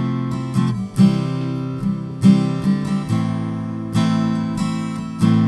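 Background music: an acoustic guitar strumming chords, with a fresh strum about once a second.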